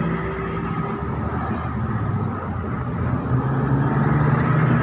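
Heavy road vehicle's engine pulling up a steep climb: a steady low engine note that grows louder about three seconds in.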